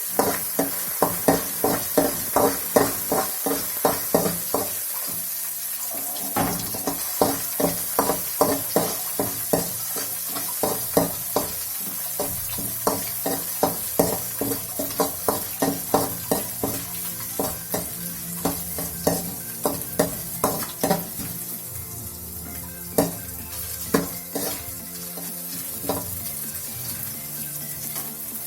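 Crushed ginger and garlic sizzling in hot oil in a pan, being sautéed until their raw smell goes. A stirring utensil scrapes and knocks against the pan in repeated strokes, about two a second at first and more spread out later.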